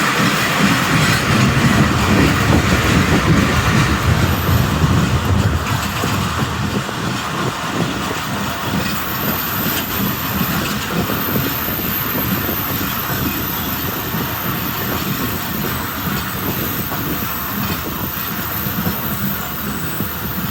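Hazara Express passenger train running along the track, its wheels clattering steadily over the rails, a little louder in the first few seconds.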